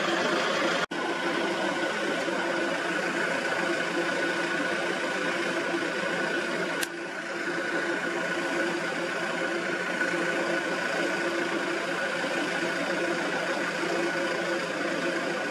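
Vehicle engine idling steadily, a constant hum with a brief dropout about a second in and a click about halfway through.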